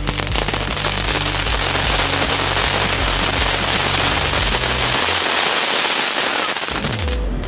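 'Thunder Birds' fountain firework spraying: a steady loud hiss of sparks with crackling from the star bursts above it, starting right at the beginning and cutting off suddenly near the end.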